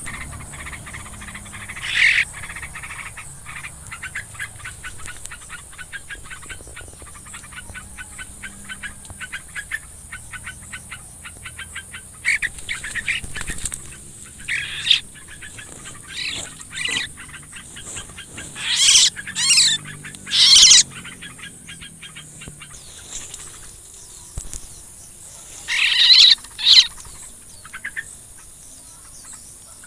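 Birds calling: rapid repeated chirps and several loud harsh calls in short bursts, over a steady high drone of crickets.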